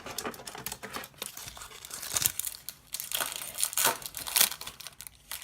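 Crinkling and crumpling of an empty foil Pokémon booster pack wrapper being handled and scrunched up, a dense crackle with louder scrunches about two seconds in and again near four seconds.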